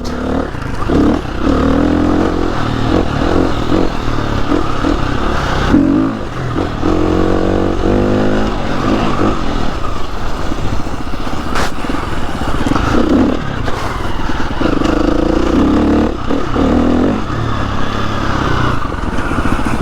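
KTM 350 EXC-F enduro bike's single-cylinder four-stroke engine being ridden off-road, its revs rising and falling repeatedly as the rider keeps it revved between second and third gear.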